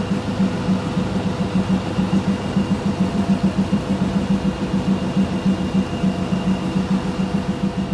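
Air-duct cleaning machine running steadily: a loud, fast-pulsing low drone with a thin high whine over it.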